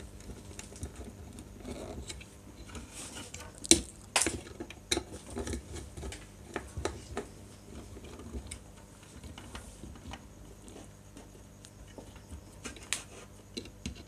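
Small handling clicks, scrapes and taps of a screwdriver working terminal screws and wires being fitted on a plastic switch-and-socket board, the sharpest clicks about four seconds in.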